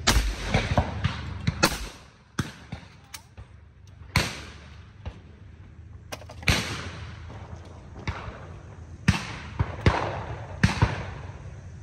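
Shotgun shots at a sporting clays course, about a dozen at uneven intervals. Several are loud with a ringing echo after them (at the start, and around four, six and a half and nine seconds in); the rest are sharper and fainter.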